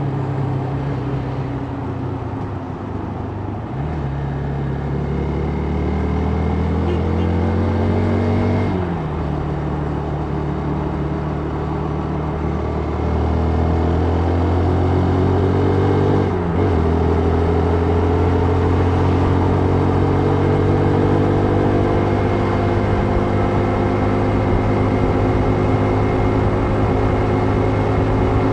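Vehicle engine pulling through the gears. Its pitch climbs and then drops sharply at each of three gear changes, then rises slowly and evenly at cruising speed, over a steady rush of wind and road noise.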